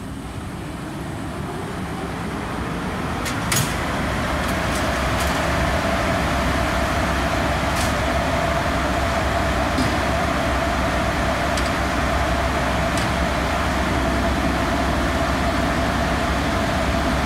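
WAG5P electric locomotive's blowers and auxiliary machines running up at start-up: a whir with a steady whine and a low hum that builds over the first few seconds, then holds steady. A sharp click comes about three and a half seconds in, with a few fainter ticks later.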